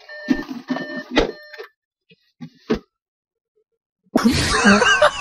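Audi S4's door-open warning chime beeping repeatedly with an open driver's door, over a couple of knocks from someone shifting across the seats. It stops about two seconds in, followed by a click and near quiet, then a loud burst of other noise near the end.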